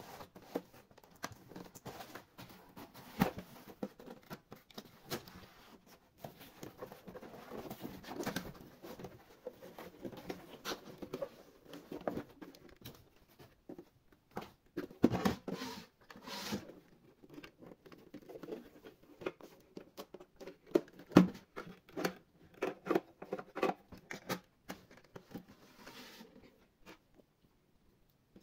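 Close, irregular crackling, tapping and scraping of small objects being handled, with a few sharper clicks about halfway through and a lull near the end.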